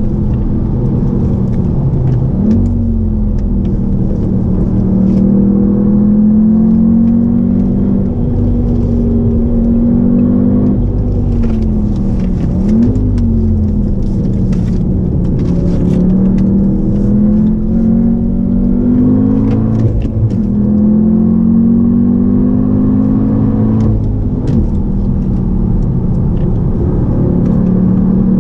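Audi TTS's turbocharged 2.0-litre four-cylinder engine pulling through the gears of a manual gearbox: the engine note climbs slowly, then drops at each upshift, several times, over a steady low rumble.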